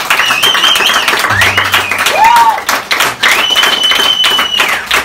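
Onlookers clapping and applauding at the end of a wedding dance, with several shrill whistles, one of them held for over a second near the end.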